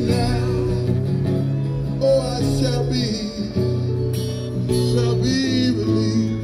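Acoustic guitar strummed with a man singing along through a microphone, and a second guitar playing with it: a slow folk song played on the street.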